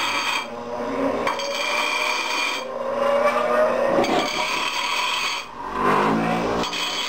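Rusty steel wrench being scraped by hand with a wire brush, with rubbing strokes broken by short pauses, to clean bare metal where the wire must make electrical contact.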